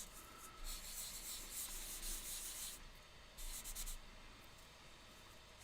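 Scratchy strokes of a pen writing and drawing on a surface, in two spells, the longer one first and a short one about three and a half seconds in.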